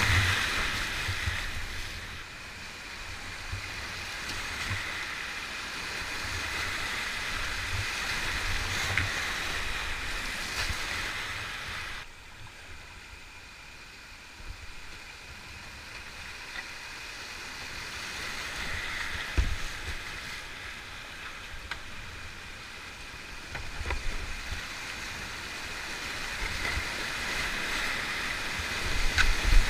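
Rushing whitewater of a steep rocky creek rapid heard from the kayak, a continuous roar of foaming water with occasional low thuds. It drops suddenly quieter about twelve seconds in on a calmer stretch and builds again near the end as the next rapid approaches.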